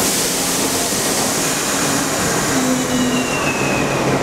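R62A subway train pulling out of the station: a steady rumble and hiss of the moving cars with a few held motor tones, and a thin high tone that slides slightly down about three seconds in.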